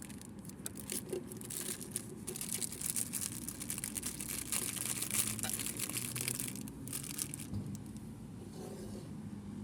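Packaging crinkling and rustling as it is handled and opened, in busy bursts for about the first seven seconds, then quieter.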